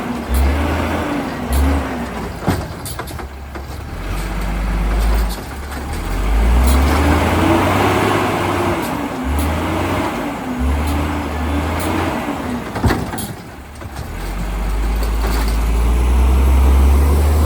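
Autocar WX automated side-loader refuse truck working close by, its engine speeding up and dropping back again and again with a wavering whine. There are a couple of sharp knocks partway through.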